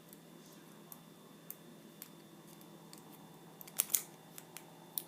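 Small tools and metal bits handled on a workbench: scattered light clicks, with a louder clatter of a couple of clicks about four seconds in.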